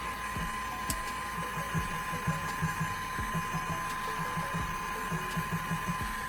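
Heat gun running on a low setting: a steady blowing hiss with a constant high whine, and a few light clicks.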